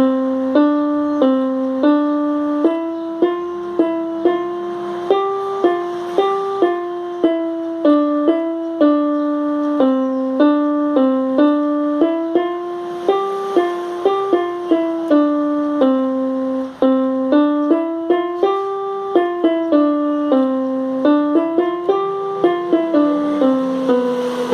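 Casio electronic keyboard playing a slow, simple melody one note at a time, about two notes a second, each note sounding on until the next.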